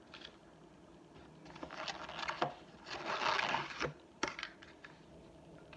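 Handling noise as coleslaw is put onto a chicken sandwich: a few light clicks and taps, a louder rustling scrape about three seconds in, then a sharp click a little after four seconds.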